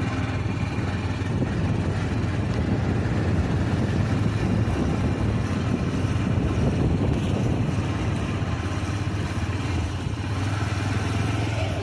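Motor scooter engine running steadily while riding along a road, with a steady low hum under wind and road noise.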